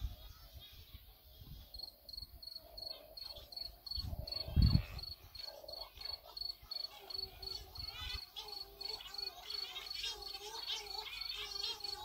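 Cory's shearwaters calling at night, their wavering, repeated wailing calls rising and falling, while a cricket chirps steadily at about four chirps a second from about two seconds in. A low thump about four and a half seconds in is the loudest moment.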